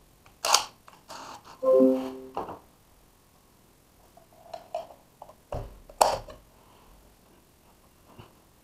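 Scattered clicks and knocks of hands handling a cordless drill, a metal bracket and a network cable. A brief pitched tone about two seconds in, and a louder knock with a dull thump around six seconds in.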